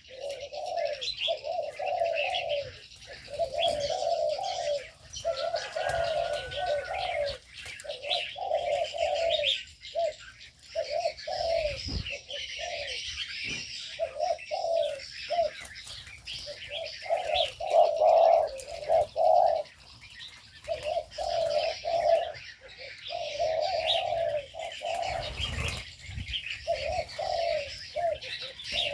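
Spotted doves cooing, phrase after phrase with short gaps, the coos often overlapping as if from more than one bird. Steady high chirping and twittering of smaller birds runs underneath.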